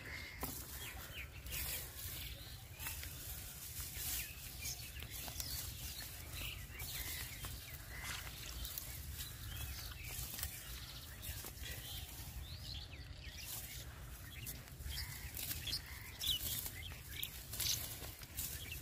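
Wind rumbling on the microphone, with dry grass rustling as it is grabbed and pulled by hand, and short bird calls now and then.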